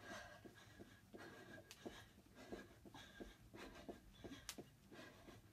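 Faint, quick taps and scuffs of sneakers on a rug during mountain climbers, several a second, with faint breathing.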